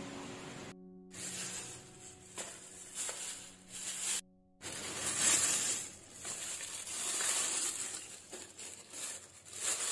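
Thin plastic shopping bag crinkling and rustling as it is handled and opened, in uneven bursts of crackle.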